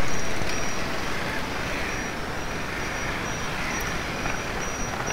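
Riding noise from a KTM Duke 250 on the move: a steady rush of engine, tyre and wind noise, loudest at the start and settling lower within about two seconds.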